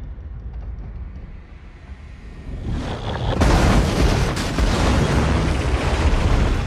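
Film sound effects of a derailed bullet-train carriage crashing: a low rumble for the first couple of seconds, then, about three seconds in, a loud crash of noise with repeated impacts as the carriage smashes along the street.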